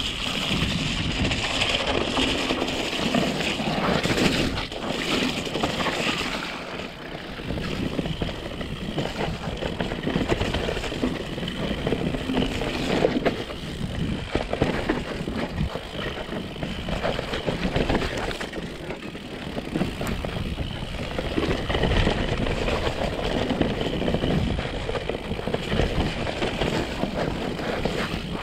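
Mountain bike descending a rough forest singletrack at speed: continuous tyre and wind rush on an action camera, with frequent knocks and rattles from the bike over bumps and roots.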